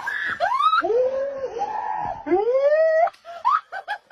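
An animal howling: about four long calls that rise and bend down in pitch, followed near the end by a quick run of short, choppy calls.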